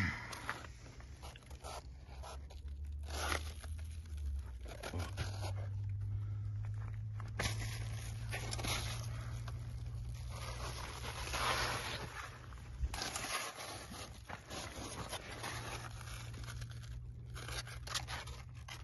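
Irregular rustling and scraping as cucumber vines and leaves are brushed and handled close to the microphone, over a steady low hum.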